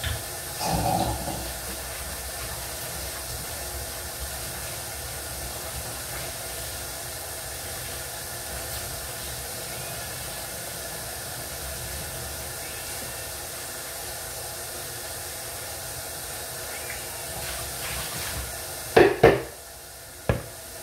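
A steady hiss from the kitchen, with a short clink of cookware about a second in and a louder clatter of pots or dishes near the end, just before the hiss stops.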